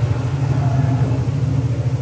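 A steady, loud low rumble, like a running engine.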